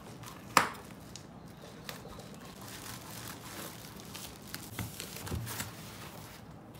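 A bubble-wrap mailer set down on a wooden desk with one sharp knock about half a second in, then scissors snipping through the plastic mailer amid crinkling of the bubble wrap.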